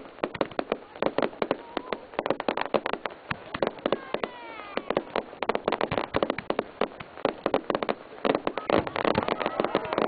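Aerial fireworks crackling: a dense, irregular stream of sharp little pops and cracks from glittering crackle effects, going on without a break.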